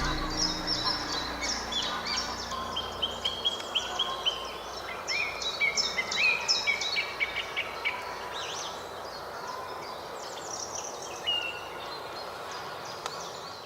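Several songbirds singing at once in a spring chorus: many short, overlapping chirps and quick down-sliding notes, gradually growing fainter.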